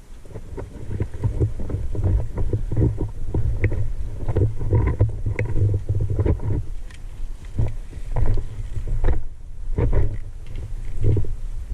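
Rumble and irregular rustling and knocking from a body-worn point-of-view camera's microphone as the wearer moves, with a brief lull about nine seconds in.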